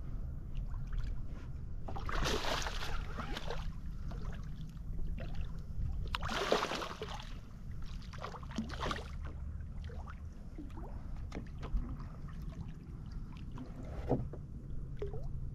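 Water splashing in two loud bursts, typical of a hooked snook thrashing at the surface during the fight, over a steady low rumble.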